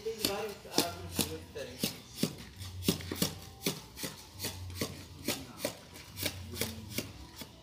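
Steel shovel chopping and scraping through a pile of cement mortar being mixed by hand on the ground, in repeated strokes about two to three a second.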